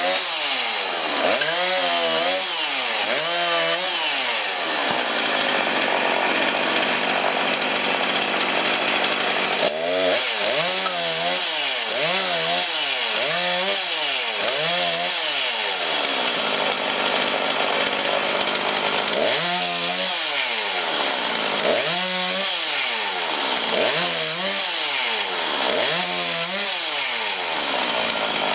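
Two-stroke chainsaw cutting firewood logs. The engine's pitch rises and falls about once a second as it works through the wood, with a few seconds of steadier running in between.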